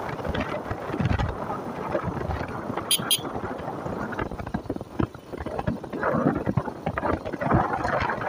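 Motorcycle running at road speed, with wind rushing over the microphone. Two short, sharp high sounds about three seconds in.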